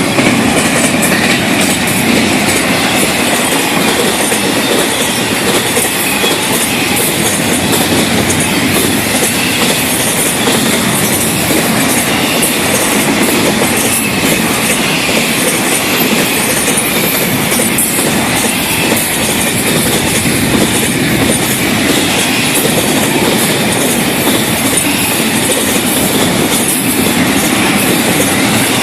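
Freight cars of a long Florida East Coast Railway freight train rolling past close by: a steady loud rumble of steel wheels on rail with irregular clickety-clack, and a high wheel squeal wavering in and out.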